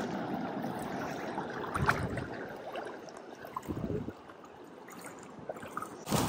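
Shallow seawater sloshing and trickling around the legs of people wading across a reef flat, with a couple of louder splashes.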